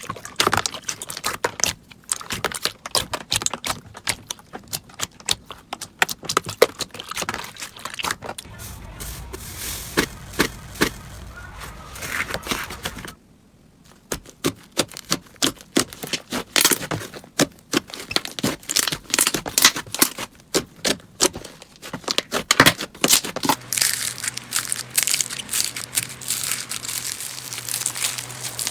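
Slime being squeezed and poked by hand, giving dense crackling and popping clicks, with a brief break about thirteen seconds in.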